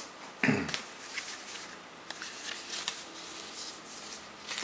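Rustling and light plastic clicks of a CD package being handled and opened by hand, with a short low thump about half a second in.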